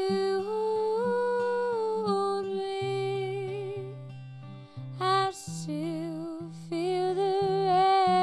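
A woman singing long held notes without clear words, wavering with vibrato in the second half, over a plucked guitar accompaniment.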